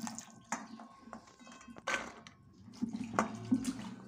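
Water sloshing and splashing in a metal bowl as chopped radish seed pods are rubbed and washed by hand, in irregular wet crackles and splashes.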